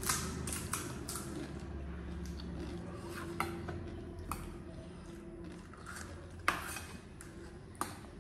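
Metal spoon clinking against a stainless steel bowl several times at scattered moments, over a low steady hum.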